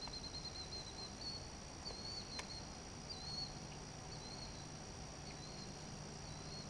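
Quiet lakeside ambience with a small bird giving short, high, wavering chirps about once a second. There is a single sharp click about two and a half seconds in, and a faint low hum from about halfway.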